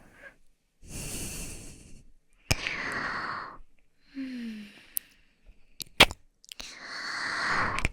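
A woman breathing slowly and audibly into the microphone: four long breaths, the last one swelling louder. The third breath has a short falling hum, and a few sharp mouth clicks fall between them.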